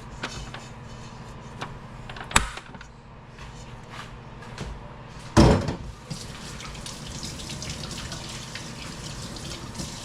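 Kitchen work sounds over a steady low hum: a sharp click a couple of seconds in and a heavy clunk about five seconds in, then the light hiss of a kitchen tap running.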